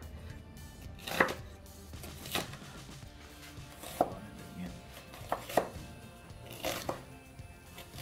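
Chef's knife chopping onion on a wooden cutting board: about seven sharp knife strikes at an uneven pace, a couple of them in quick pairs.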